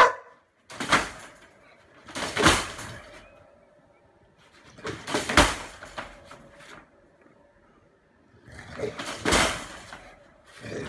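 A dog in a wire crate barking: about five short, separate barks spaced irregularly, with quiet gaps between.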